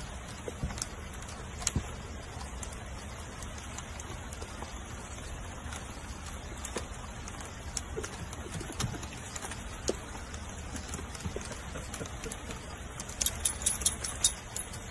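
Rain falling on a wooden porch deck: a steady hiss with scattered sharp drips and taps, which grow busier near the end.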